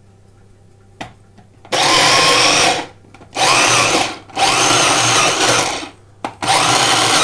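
Electric mini food processor run in short pulses: its motor and blade whir in four bursts of about a second each with brief gaps, chopping a mixture of sun-dried tomatoes, pine nuts, parmesan and oil into pesto. A click comes just before the first burst.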